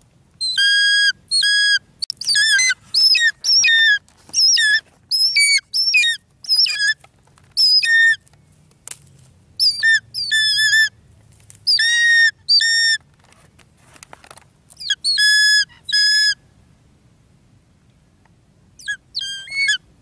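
Changeable hawk-eagle calling over its prey: a long series of loud, shrill whistled notes, several a second, some falling slightly in pitch. They stop for a couple of seconds, then a few more come near the end.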